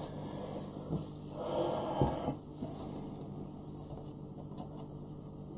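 Faint rubbing and scraping of a small hand tool worked over thin self-adhesive wooden deck veneer on a plastic model deck, with light taps about one and two seconds in.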